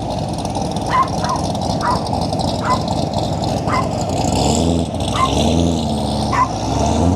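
A dog barking in short yelps, roughly once a second, over a car engine that revs up and down a few times in the second half.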